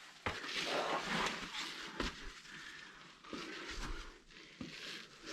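A hiker breathing hard in repeated heavy breaths, each about a second long, with a few scuffing footsteps on rock.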